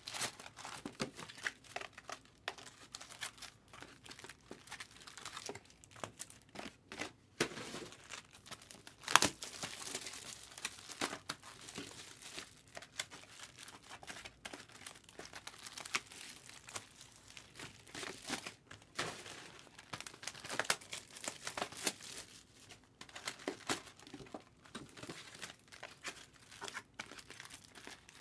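Trading card pack wrappers crinkling and tearing as packs of Topps Chrome cards are opened and handled: an irregular run of rustles and crackles, with one sharper snap about nine seconds in.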